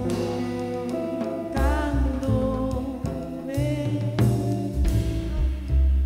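Live band music: a pitched lead melody that bends in pitch over a deep bass line, with drum and cymbal hits.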